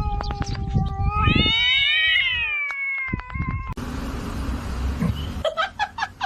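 A cat giving one long, drawn-out yowl that rises and then falls in pitch, with a few knocks under it. This is followed by a steady hiss and a few short, high calls near the end.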